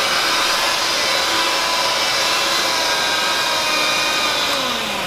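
Electric hand mixer running steadily, its beaters whipping instant chocolate pudding and heavy cream into a thick filling in a glass bowl. The motor's pitch drops near the end.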